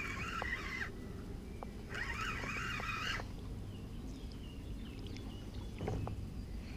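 Spinning reel being cranked in two bursts of about a second and a half each, its gears whirring as line is wound in.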